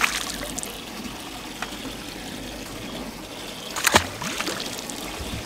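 Water trickling and dribbling, with one sharp impact about four seconds in that is the loudest sound, and a faint tick earlier.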